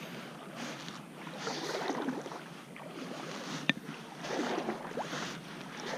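Kayak paddle strokes in the water: repeated swishing splashes, about one every second or so, with a brief tick partway through.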